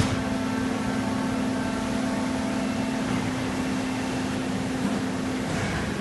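Steady hum of factory machinery at an injection-moulding robot cell: a low steady tone with fainter higher tones over an even background noise. A short sharp click at the very start; the hum stops abruptly about five and a half seconds in, followed by a brief hiss.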